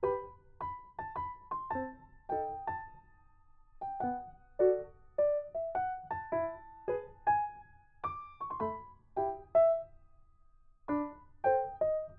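Background music: a slow keyboard melody of separate notes that each die away quickly, with brief pauses about three seconds in and again near ten seconds.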